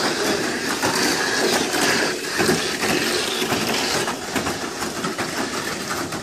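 Tamiya Mini 4WD cars running laps on a plastic track: small electric motors whirring steadily, with a constant fine clatter of the cars against the track.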